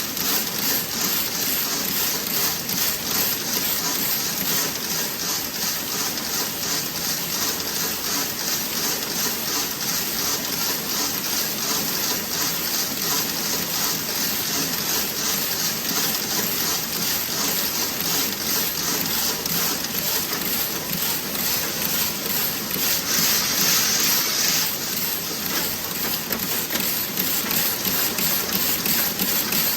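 Toe-sock knitting machine running: a fast, even mechanical clicking over a steady hiss, with a louder burst of hiss lasting under two seconds about three-quarters of the way through.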